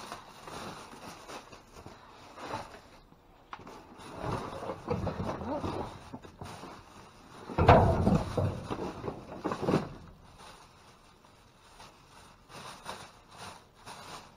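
Rummaging through a dumpster: irregular rustling of bags and packaging and knocks of items being shifted, in two spells, the louder beginning with a sudden thump about eight seconds in.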